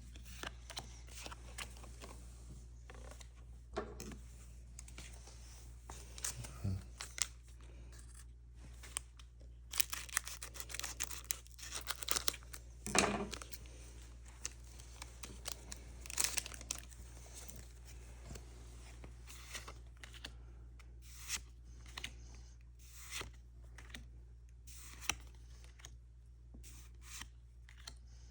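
Foil Pokémon booster pack wrappers being opened, with bursts of tearing and crinkling, loudest about halfway through. A steady low hum runs underneath.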